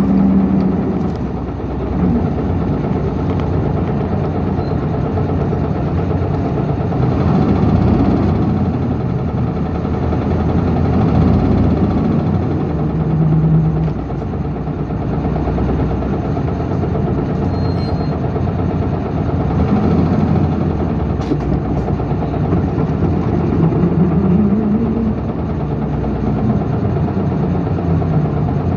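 Interior running sound of an Isuzu Erga city bus (PKG-LV234L2), heard from the rearmost seat above its rear-mounted inline-six diesel. The engine note rises and falls several times as the bus pulls away and eases off. The recordist labels this bus an abnormal-noise vehicle.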